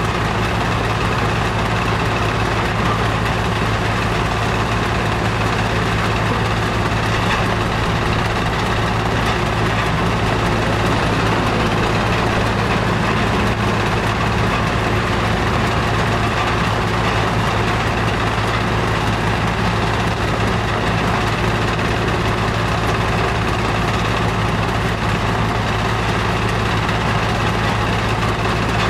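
Heavy diesel machinery running at a steady speed: a constant low engine hum with a noisy mechanical rumble over it and no change in pace.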